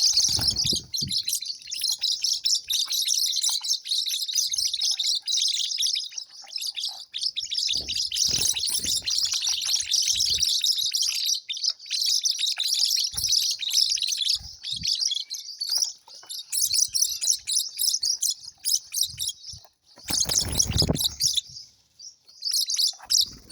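Many small birds chirping and twittering together, a dense, rapid, high-pitched chatter with no pause, broken by a few low thumps.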